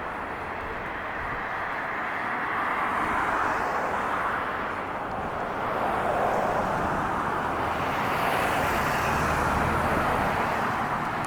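A steady rushing noise of passing motor traffic, swelling and easing gently.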